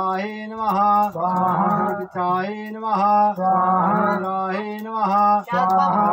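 A man chanting Sanskrit havan mantras in a near-monotone, phrase after phrase with short breaks for breath.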